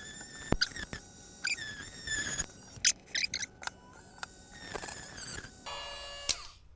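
Short, squeaky scraping strokes and sharp clicks of a hand tool trimming and cleaning up a plastic Mini 4WD chassis part, in quick irregular bursts.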